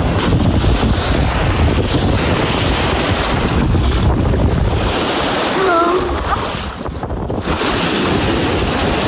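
Wind buffeting the microphone over waves washing onto the shore, a steady heavy rush with a short dip in level about seven seconds in.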